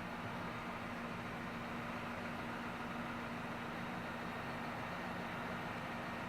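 Tractor engine idling steadily: a constant, even hum that does not change.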